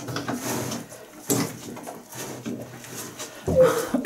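Cattle mooing: a short, low, falling moo near the end, with brief rustling noises before it.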